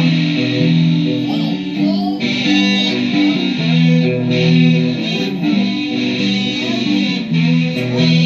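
Guitar music: chords played in a steady, continuing pattern, with no voice over it.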